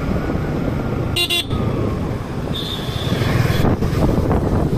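Yamaha MT-15 motorcycle riding at low speed, engine running steadily under wind and road noise, with a short horn beep about a second in.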